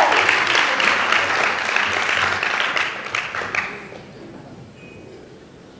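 A large audience applauding, the clapping dying away about four seconds in.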